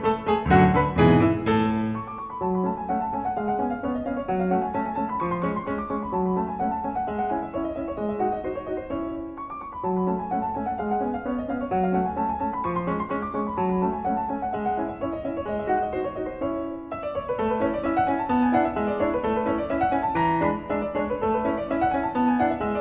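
Background piano music: a solo piano playing flowing runs of notes that rise and fall, a little louder in the first couple of seconds.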